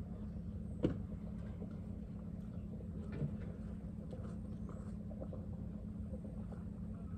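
Quiet outdoor ambience: a steady low hum, with a sharp click about a second in and a fainter knock about three seconds in.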